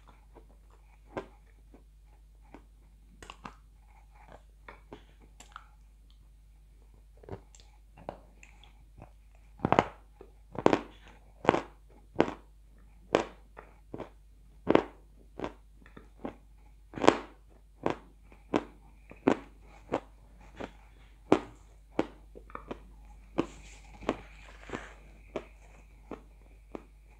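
Close-miked crunching and chewing as a person bites and chews hard white pieces: sharp separate crunches, sparse at first, then louder and regular, about one or two a second.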